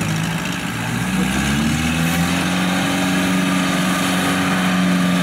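Kubota combine harvester's diesel engine running under way, its note rising about a second in and then holding steady.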